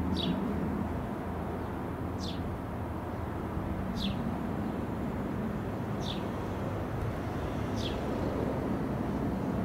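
Steady jet noise from an overflying Dassault Falcon 20 business jet's twin turbofan engines. Over it a bird repeats a short, falling chirp about every two seconds.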